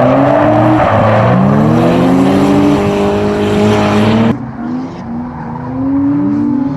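A car engine revving up and down hard over tyre squeal, as in drifting. It cuts off abruptly about four seconds in, giving way to a quieter engine that keeps rising and falling in pitch.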